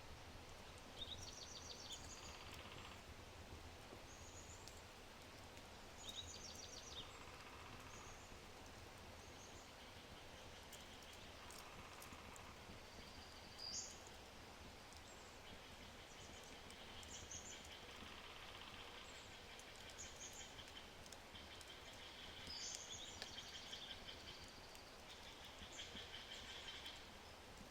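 Faint crackling of an oak wood fire with scattered small pops, under songbirds calling and trilling on and off, with short high rising whistles and several rapid trills.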